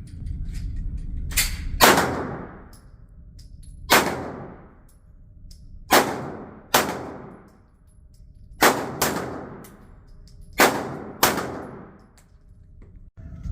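Glock 19 5th Gen 9mm pistol firing about nine shots at an uneven pace, some in quick pairs, each sharp crack trailing off in an echo.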